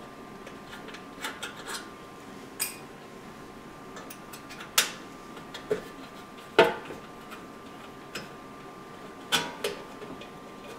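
Scattered metallic clicks and clinks of an Allen key turning out the bottom-plate bolts of a MakerBot Replicator 2X 3D printer, with a few sharper knocks, the loudest about five and six and a half seconds in.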